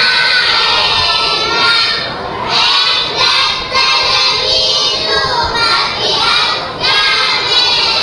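Children's choir singing loudly in unison, in phrases of a second or two with short breaks between them.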